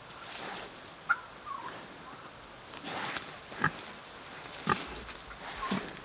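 Pigs grunting and snuffling as they root in the dirt and eat grass, with a few short sharp snaps.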